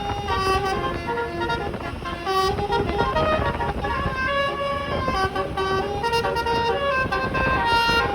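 Twelve-note 'telolet' horn with roof-mounted trumpets playing a melody, its held notes stepping quickly from one pitch to the next over a steady low rumble.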